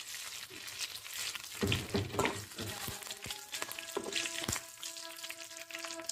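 Curry leaves, garlic, chana dal and mustard seeds sizzling in hot oil in a steel kadai, the tempering (tadka) stage. A spoon stirs through them and knocks and scrapes against the pan about two seconds in and again around four seconds.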